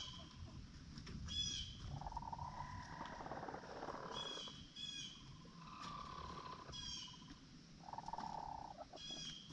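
Chickens calling: three drawn-out calls of a second or two each, with short high chirps repeating every second or two in between.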